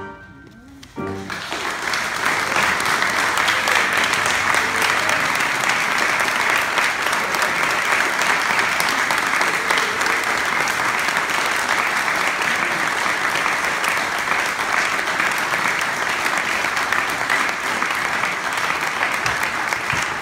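Audience applauding steadily, breaking out about a second in after a moment of silence.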